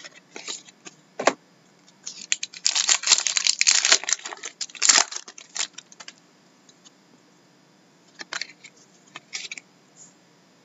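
Stack of hockey trading cards being shuffled and flipped through in the hands: card edges sliding and snapping against each other in a dense run of rapid clicks and rustling for a few seconds, with scattered single clicks before and after.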